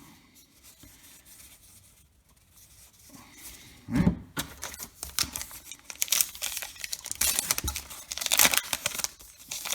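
Baseball card pack wrapper being torn open and crinkled: a rapid run of tearing and crinkling that starts about halfway through, after a few quiet seconds.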